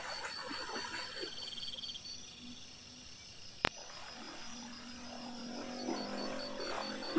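Night-time ambience of insects chirping in a steady pulsing trill and frogs croaking, with a single sharp click a little past halfway.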